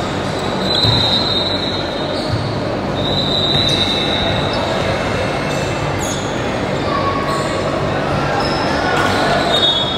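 Gym game noise: steady crowd chatter with a few short, high squeaks and the thuds of a ball on the court.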